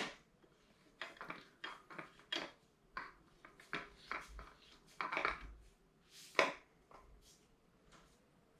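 A wrench tightening the nut on a cam bearing removal tool, making a series of short, irregular metal clicks and clinks as the expansion sleeve is snugged up inside the bearing. The loudest clink comes about six seconds in.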